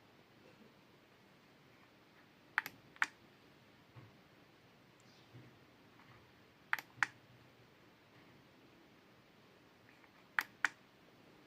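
Lenovo M210 wired mouse button clicking three times, a few seconds apart; each click is a pair of short, sharp snaps, the press and the release of the button.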